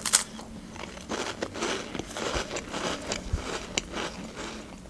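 Cheese-filled cracker sandwich bitten with a sharp crunch right at the start, then chewed close to the microphone with many small crisp crackles.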